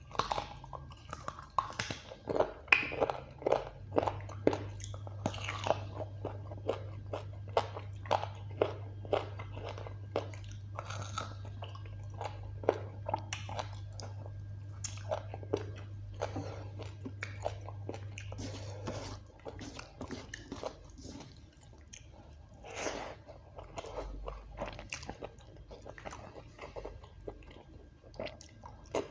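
A person eating close to the microphone: steady chewing with many irregular wet smacks and crunchy bites. A low hum runs underneath from about four seconds in until shortly before the middle of the stretch ends.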